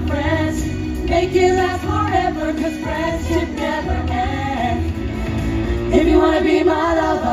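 Pop-style song from a live stage show: singing over music with a steady bass beat.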